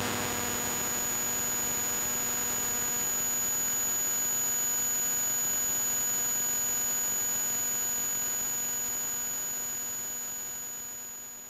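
SOMA Ether anti-radio receiver turning the electromagnetic field of a car's dashboard display into sound: a steady electrical hum and buzz with a thin high whine over hiss. It fades away near the end.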